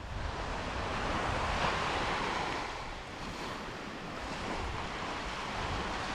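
Small surf washing onto a sandy beach, swelling and easing, with wind buffeting the microphone.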